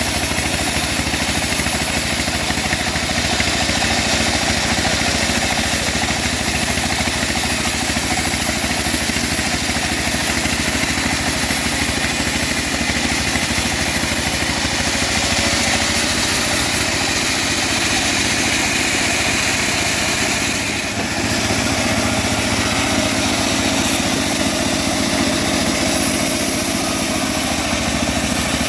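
Homemade engine-driven bandsaw mill running steadily while sawing old teak timber, with a brief drop in loudness about two-thirds of the way through.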